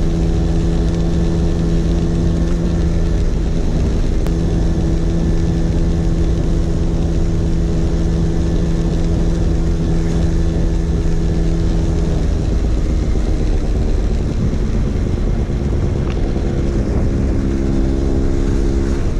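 Vespa PX 150's single-cylinder two-stroke engine running through a DRC Victory racing exhaust while riding, with heavy wind rumble on the microphone. The engine note holds steady, fades about two-thirds of the way through, and comes back near the end.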